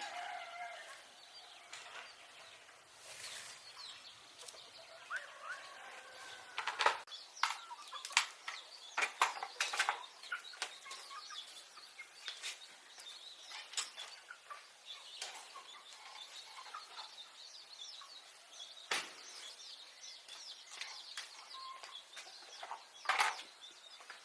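Chickens clucking faintly, with scattered sharp taps and clicks throughout.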